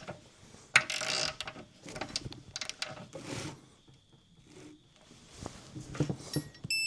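Ratcheting of a torque wrench in a couple of short bursts while tightening a suspension nut, then a faint steady tone. Just before the end comes a loud electronic beep from the torque wrench, its signal that the set torque of 39 has been reached.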